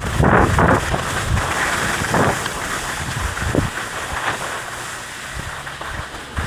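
Wind rushing over the microphone while skiing downhill, with skis hissing and scraping over groomed snow in a few short surges, easing off a little toward the end.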